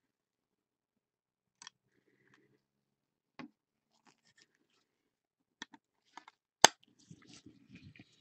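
Clear plastic card holder handled with gloved hands: scattered light clicks and taps, one sharp snap about six and a half seconds in, then scraping and rustling of plastic.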